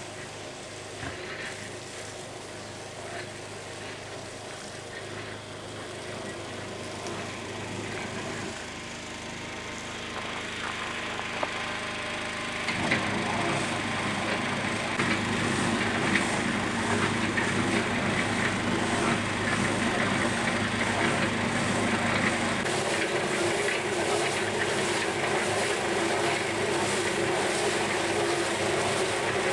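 A motor-driven machine running steadily, louder and rougher from about 13 seconds in.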